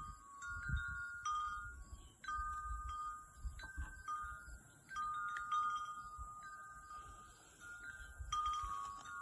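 Wind chimes ringing, their tubes struck at irregular moments so that several pitched notes overlap and fade slowly. A low rumble runs underneath.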